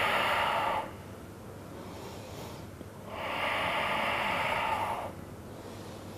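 A woman breathing deeply while holding a yoga pose: two long, steady breaths, the first ending about a second in and the next running from about three to five seconds in.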